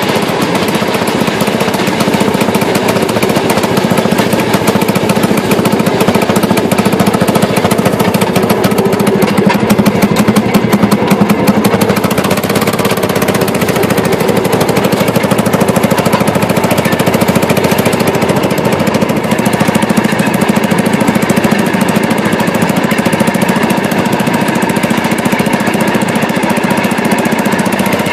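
Two-cylinder engine of a Fairmont M19-AA railroad speeder running steadily under way, a fast even clatter, heard from inside the cab. It gets a little louder between about 8 and 12 seconds in.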